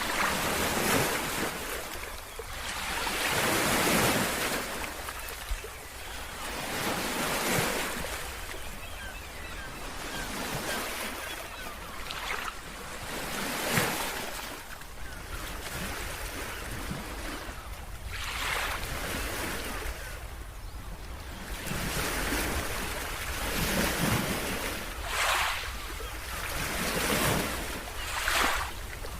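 Sea waves breaking and washing up on a beach, surging in swells every few seconds, over a steady low rumble of wind on the microphone.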